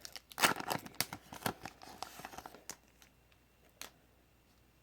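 Foil Pokémon booster-pack wrapper crinkling and tearing as the cards are pulled out: a busy flurry of crackles in the first couple of seconds, then a single click a little before the end.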